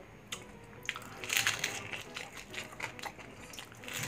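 Crunching of crispy, blistered bagnet (deep-fried pork belly) skin being bitten and chewed close to the microphone, with a dense burst of crackling about a second in and sharper cracks scattered around it.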